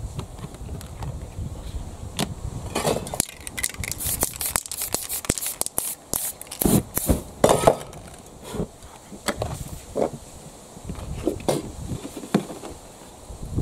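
Sheets of paper and a painted board being handled and lifted off a work surface: rustling, crackling and scraping, with a string of sharp knocks that are densest and loudest in the middle.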